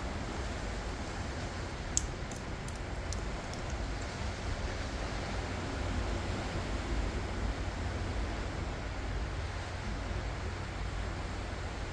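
Ocean surf washing steadily onto the shore, a continuous rushing noise with a deep low rumble under it. A few faint sharp clicks come about two to three and a half seconds in.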